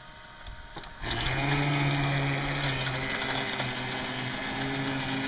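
Bulldozer engine running steadily as the machine is driven forward pushing dirt, coming in suddenly and loud about a second in after a quieter start.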